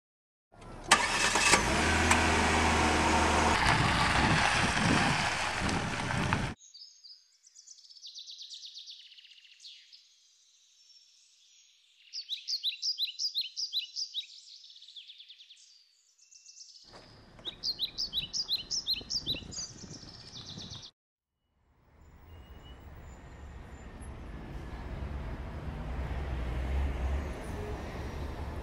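A car engine starts about a second in, runs loudly and then cuts off abruptly. Small birds chirp and trill in quick runs. In the last third a car's engine and road noise build steadily as it drives.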